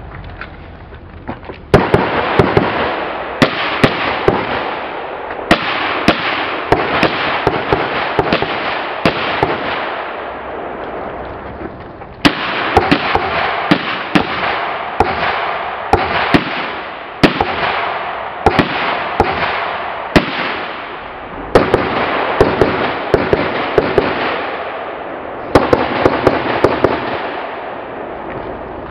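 Rifle fire from several shooters on a range: sharp shots in quick, irregular succession, several a second at times, with short lulls between strings of fire.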